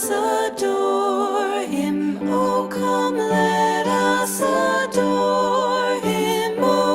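Christmas music: a song with a sung, slow-moving melody.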